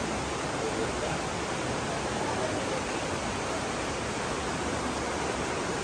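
Steady, even rushing of flowing river water.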